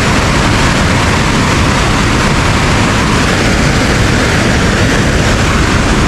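Steady, loud rushing of a glacial river flowing below a bridge, unbroken throughout.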